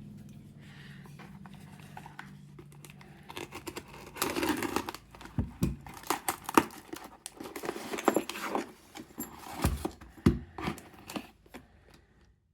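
A parcel being opened by hand: packaging tearing and crinkling in irregular handfuls, with sharp clicks and a few dull knocks. A low steady hum fades out over the first few seconds.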